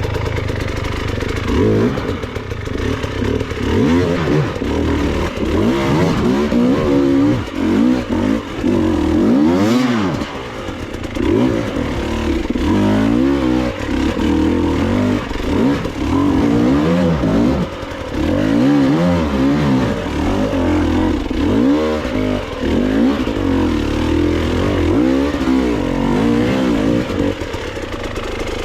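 Enduro dirt bike engine revving up and down over and over, its pitch rising and falling every second or so as the throttle is worked on rough trail.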